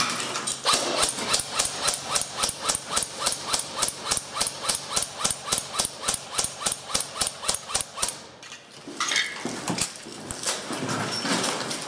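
MP5K-type airsoft gun firing a long string of shots, about five a second, stopping about eight seconds in; softer scuffing noises follow.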